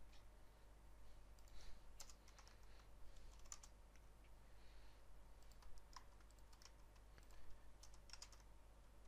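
Faint computer keyboard keystrokes in a few short, scattered clusters, over a low steady hum.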